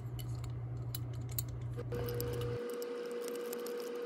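Small clicks and taps of a screwdriver and fingers handling a die-cast HO scale model locomotive while its screws are worked out of the underside. A steady low hum stops about two-thirds of the way through, and a faint steady tone sets in about halfway.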